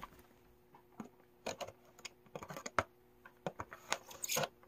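Knife blade scraping and picking at the sealing tape on a cardboard box, a scattered run of small sharp clicks and short scratches.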